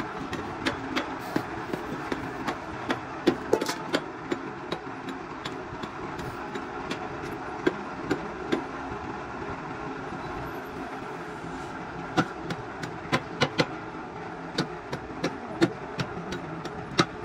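A machine running with a steady noise, with many sharp, irregularly spaced clicks and knocks over it.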